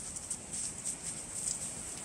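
Footsteps crunching in shallow fresh snow at a walking pace, about a step every half second or so, over a steady low rush of wind.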